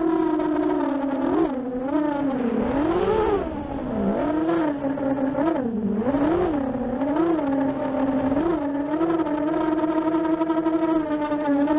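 7-inch FPV racing drone's brushless motors and propellers whining, the pitch dipping and rising again and again with quick throttle changes, then settling to a steady whine near the end.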